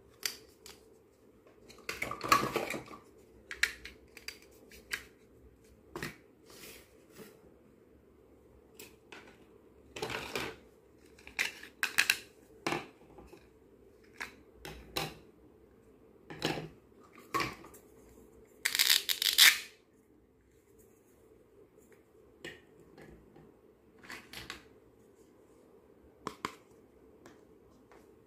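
Hard plastic toy kitchen pieces handled and set down: light clicks and knocks as toy vegetables go into a plastic basket and plastic toy plates are laid out and stacked. Denser, louder clattering comes about two seconds in and again near nineteen seconds.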